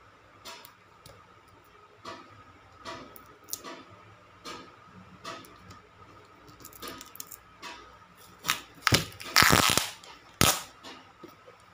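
Packaging being handled and opened by hand: scattered rustles and clicks, then a louder burst of crinkling and snapping about nine seconds in.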